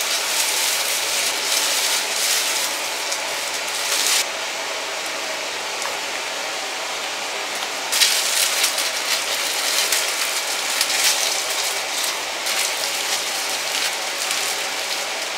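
A steady rushing hiss, like running water. Its tone changes abruptly about four seconds in and again about eight seconds in.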